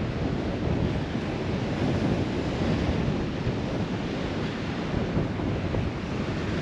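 Wind buffeting the microphone in a steady rumble over surf breaking on a sandy beach.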